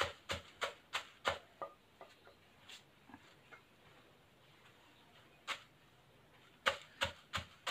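Wooden pestle pounding dry-roasted chillies into chilli powder in a clay mortar: short knocks about three a second, easing to a few light taps for several seconds, then pounding again near the end.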